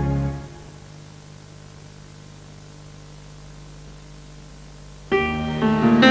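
Soundtrack music: a held organ chord dies away just after the start, leaving a few seconds of faint hiss with a low hum. A new piece of music with short, separate picked notes starts abruptly about five seconds in.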